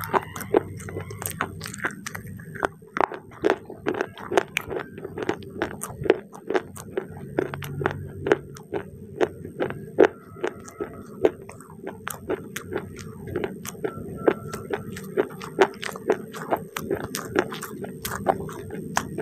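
Chewing crunchy baked clay chips right at a microphone: a steady run of sharp crunches, about three or four a second.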